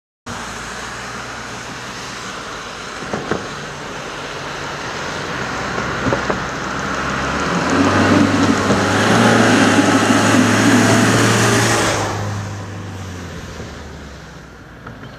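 A minibus driving past: engine hum and tyre noise build as it approaches, are loudest about ten seconds in, then fade as it goes by.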